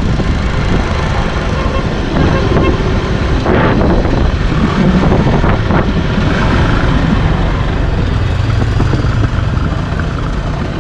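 A Yamaha motorcycle ridden slowly in traffic: engine and road noise with a steady rumble of wind on the microphone.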